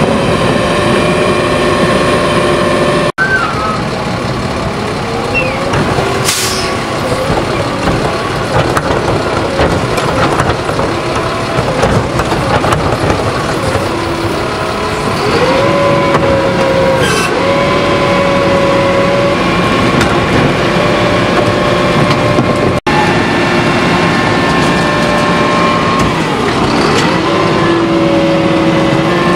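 Heil Retriever side-loader garbage truck running at the curb, its hydraulics whining up and down in pitch as the cart tipper lifts a cart, dumps it into the hopper and lowers it, with short hisses of air now and then.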